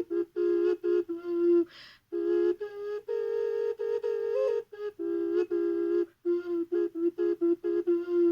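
3D-printed Huaca ocarina tuned to F4 minor pentatonic, playing a melody of short repeated notes and a few longer held ones, mostly on its lowest notes around F. There is a quick breath with no pitch about two seconds in.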